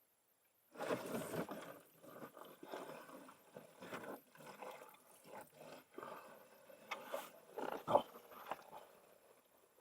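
Irregular handling noise from hands-on work on the truck's fuel system: rustling, scraping and small knocks that start about a second in, with a couple of sharper knocks near the end.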